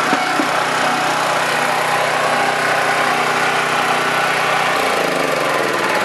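Honda small gasoline engine driving a 3-inch diaphragm pump, running steadily at speed. About five seconds in, its pitch falls as the engine slows down.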